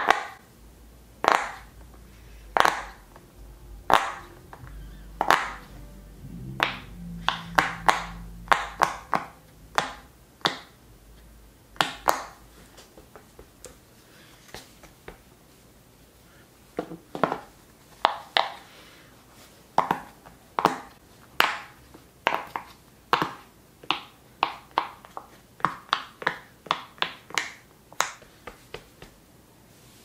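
Silicone pop-it fidget toy bubbles being pressed in by fingertips one at a time, each giving a short sharp pop. The pops come in uneven runs of one to a few a second, with a pause about halfway through.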